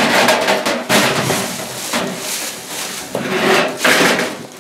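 Sheet-metal blade shroud of a band sawmill being worked loose and lifted off its frame: a series of loud metal scrapes and rattles, about a second apart.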